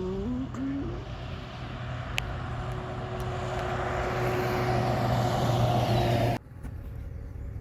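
Motor vehicle road noise: a steady low engine hum with tyre and wind noise that grows louder over about six seconds, then cuts off suddenly.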